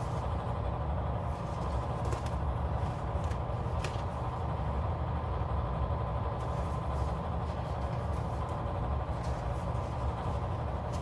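A steady low mechanical hum, with a few soft clicks and rustles of sticker sheets being leafed through, about two and four seconds in.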